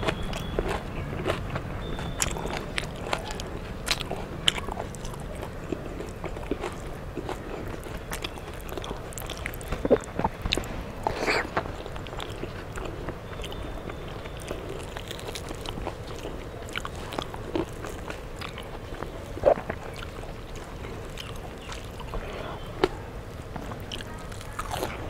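Close-miked eating by hand: a person chewing and biting crunchy fried fish, pakoda and watery rice, with scattered sharp mouth clicks.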